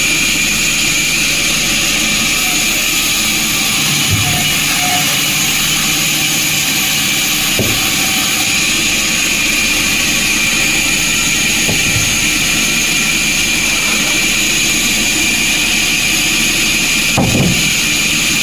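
Sawmill machinery running with a steady, loud, hissing mechanical noise that is strongest in the high range. A few faint knocks come through, and there is a stronger knock near the end.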